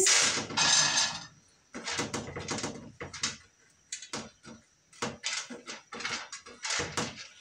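Dried corn kernels rattling against metal as they are scooped by hand from a metal tray and dropped into a frying pan. There is a brief rush of kernels at the start, then a rapid, irregular run of small clicks.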